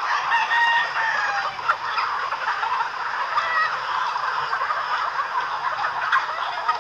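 A large flock of free-range native chickens clucking together in a dense, constant din, with roosters crowing among it.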